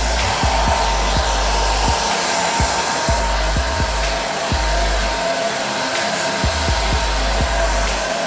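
Remington Pro Wet2Style ceramic ionic hair dryer with its detangler attachment, running continuously: a steady rush of air with a whine, and irregular low rumbling.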